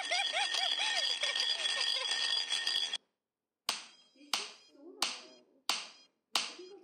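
Cartoon baby voices cooing over a steady high tone, which cut off about three seconds in. Then a beach ball is smacked back and forth in five sharp slaps about two-thirds of a second apart, each with a short ringing tail.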